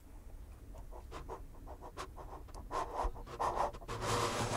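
Free-improvised electroacoustic music: sparse, irregular scratching and clicking sounds that thicken and grow louder in the second half, turning into a breathy hiss near the end.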